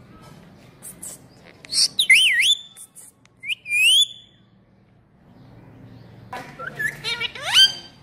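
Caged ring-necked parakeet whistling and chirping: a couple of short hissy clicks, then two warbling whistles about two and three and a half seconds in. After a pause comes a quick run of sharply rising whistled chirps near the end.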